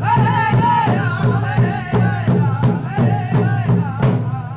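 Ojibwe drum song: voices singing high, bending notes over a steady, even drumbeat.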